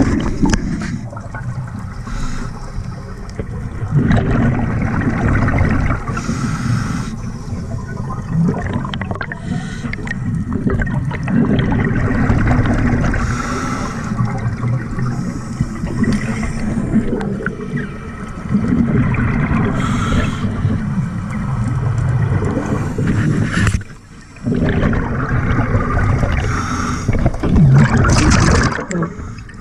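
Scuba diver breathing through a regulator underwater: a hissing inhale, then a loud burst of bubbling exhale, repeating every few seconds.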